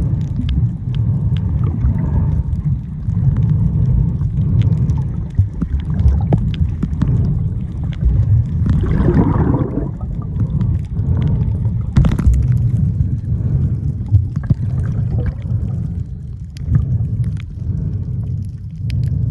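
Muffled underwater rumble of water moving against a submerged camera, with scattered small clicks and crackles throughout and a bubbling gurgle about nine seconds in.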